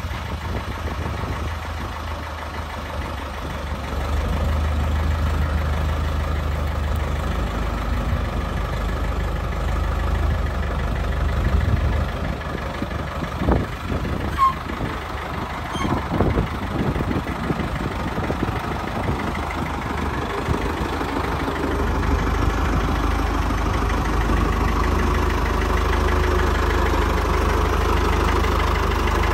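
Farm tractor engine running at a steady idle as the tractor is driven out, with a few clanks about halfway through; the engine gets louder in the last third.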